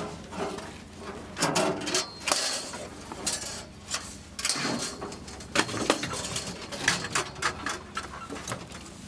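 Irregular metallic clanks and knocks of artillery shells and their pallet racks being handled on a truck bed.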